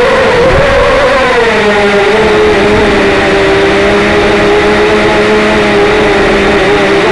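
A small engine running at high, steady revs, its pitch wavering slightly in the first couple of seconds and then holding level.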